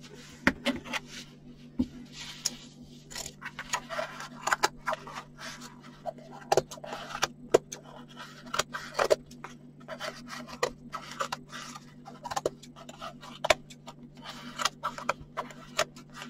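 Scissors snipping again and again through folded batting, in short irregular cuts, with the rustle of the batting being handled between snips. A steady low hum runs underneath.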